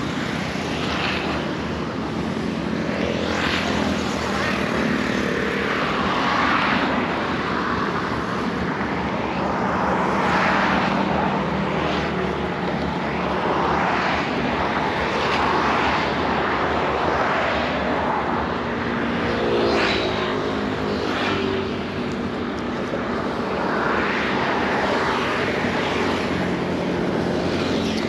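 Road traffic passing on a bridge: motorbikes and cars going by one after another, their engine noise swelling and fading in turn. About twenty seconds in, one passing engine drops in pitch as it goes by.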